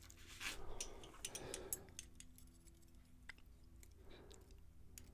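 Faint metallic clicks and scraping of a small tool working in the pin chambers of a pin-tumbler lock's bible, trying to get the pins out. The scraping is loudest between about half a second and two seconds in.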